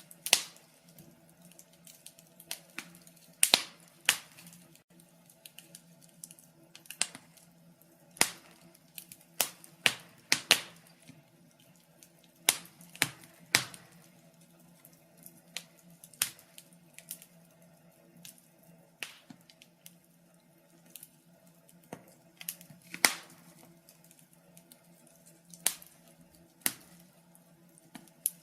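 Wood fire crackling: irregular sharp pops and snaps, a few much louder than the rest, over a faint low steady hum.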